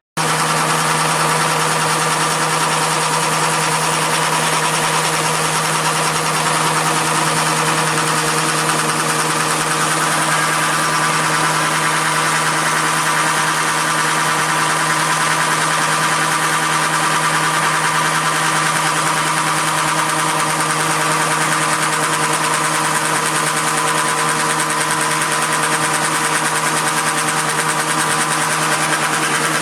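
Atlas horizontal milling machine running steadily under power, its motor and belt drive through the countershaft giving an even hum with a fixed pitch.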